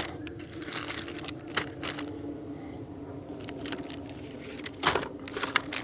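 Plastic lure packs and a plastic tackle box being handled and set into a plastic under-seat storage tray: scattered light clicks and rustles, with a louder knock about five seconds in.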